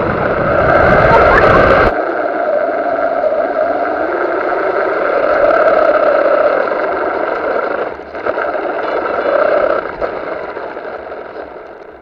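Electric motor of an FPV RC car whining steadily as the car drives, with a rough rumble under it for the first two seconds. The whine fades near the end as the car slows.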